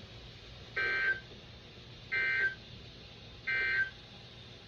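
Emergency Alert System end-of-message (EOM) tones: three short buzzy bursts of SAME digital data, each about a third of a second long and evenly spaced about 1.3 seconds apart, marking the close of the severe thunderstorm warning.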